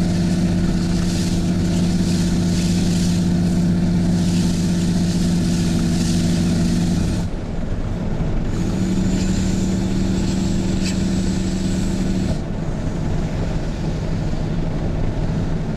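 Straight-piped 6.7L Cummins turbo-diesel inline-six of a 2010 Ram 3500, with a 5-inch side-exit exhaust and no DPF, heard from inside the cab while towing. Its steady drone under load cuts out about seven seconds in. It comes back about a second and a half later, then falls to a softer note about twelve seconds in.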